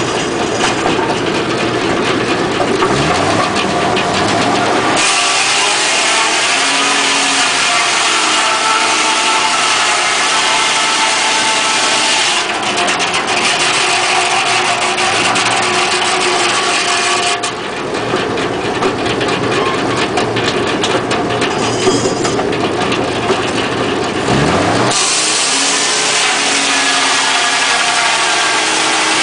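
Home-built circular sawmill running, its blade sawing a log on the carriage. It is a loud, continuous engine-driven machine sound whose character changes every several seconds, with short sweeping glides in pitch a few seconds in and near the end.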